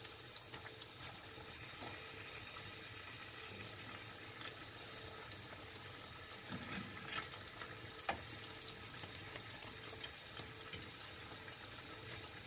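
Battered squash blossoms frying in a shallow pan of oil with a faint, steady sizzle, the batter already firm and crisp. A few light clicks of a fork poking and turning them against the pan.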